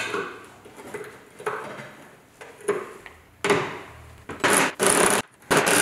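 Light metallic clinks of a socket being picked out and fitted, then an impact wrench (rattle gun) firing in three short bursts, about a second apart, undoing a bolt.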